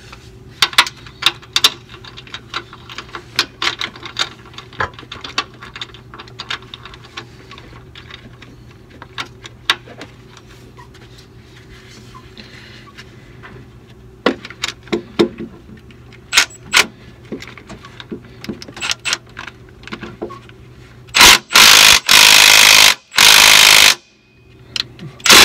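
Small hand ratchet clicking in short strokes, with metal tools clinking, as nuts are worked loose. About 21 seconds in, a cordless impact wrench runs in three loud bursts, hammering a nut off.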